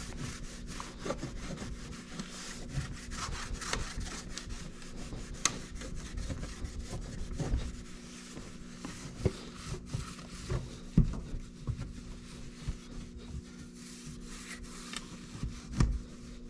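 Hands handling a loose car licence plate and its frame: rubbing and scraping, with scattered light knocks and clicks. The plate is held by only two screws and rattles against the frame.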